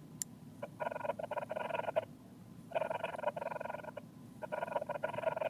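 Garage door opening sound effect played back: a rattling mechanical whir that comes in repeated bursts of about a second each, with short gaps between them.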